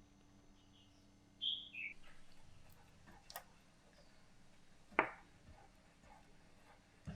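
Quiet kitchen sounds: a brief high chirp falling in pitch about a second and a half in, then three sharp clicks spread over the following seconds, the middle one the loudest, over a faint steady hum.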